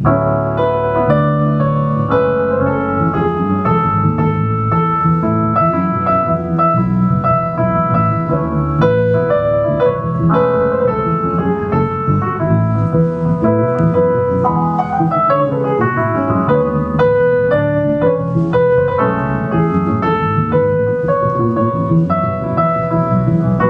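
Keyboard playing in a piano sound, a continuous run of separate notes over a low accompaniment.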